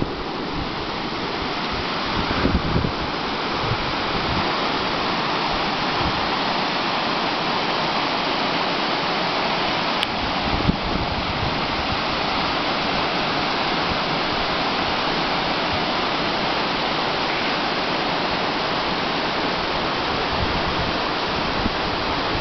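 Steady rush of river water tumbling over a weir, with a few brief bumps of wind on the microphone.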